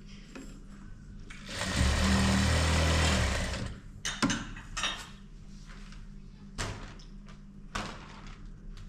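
JACK single-needle industrial sewing machine running for a short burst of stitching through sequined fabric, about two seconds long. It is followed by a few sharp clicks and knocks as the fabric and machine are handled.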